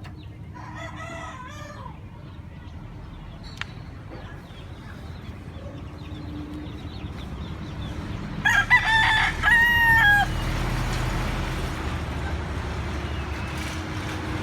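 Rooster crowing: a loud crow in several linked parts about eight seconds in, with a fainter crow near the start.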